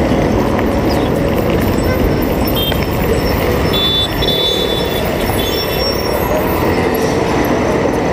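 Wind rushing over the microphone of a camera on a moving bicycle, with road traffic running underneath. A few short high chirps sound around the middle.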